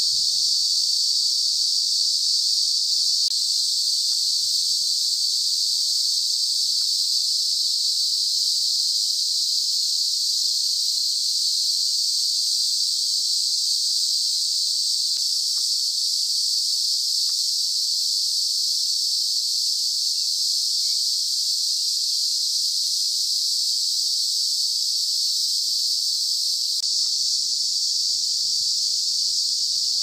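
Male cicadas singing: a loud, steady, unbroken high-pitched buzz.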